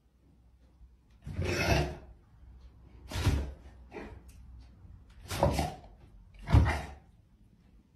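A dog and a cat play-fighting: five short, rough scuffling bursts about a second apart, the last one the loudest.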